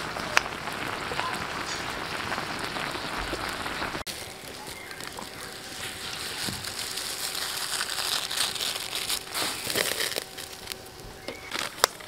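Pot of stew boiling hard over a wood-fired camp grill, a dense bubbling and crackling. About four seconds in it cuts to a plastic bag crinkling as food is tipped out of it into a pot, with a sharp click near the end.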